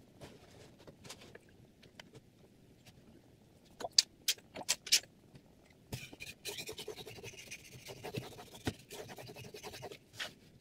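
Chef's knife held in a Hapstone T1 guided sharpener scraping over a water whetstone in a continuous rasp of quick strokes in the second half, preceded a little before the middle by a few sharp clicks.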